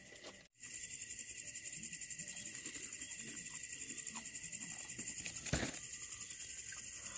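Crickets trilling at night: a steady, rapidly pulsing high chirr, with a single sharp click about five and a half seconds in.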